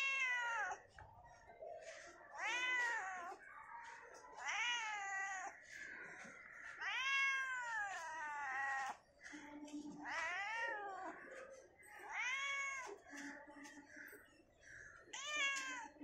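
Black domestic cat meowing repeatedly, about seven meows roughly two seconds apart, each call rising and then falling in pitch.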